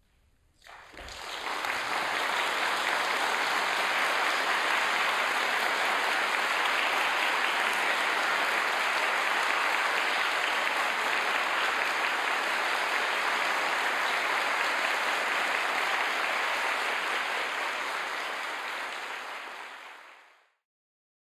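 Audience applauding: clapping breaks out about a second in after a silence, holds steady, and fades away near the end.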